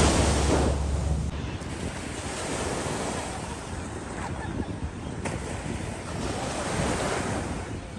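Sea waves washing onto a beach, swelling and fading. Wind buffets the microphone for the first second or so.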